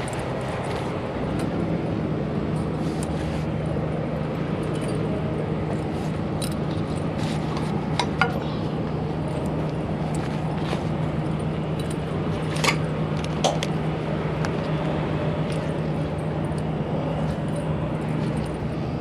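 Sharp metal clinks of tarp D-rings and bungee hooks as the tarp is handled, three standing out in the middle, over a steady low engine hum.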